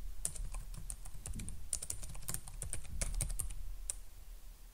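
Typing on a computer keyboard: a run of quick, irregular key clicks as a name is typed in.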